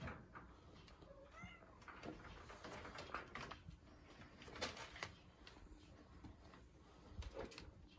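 A kitten gives one short, faint meow about a second and a half in. Scattered light taps and clicks are heard around it.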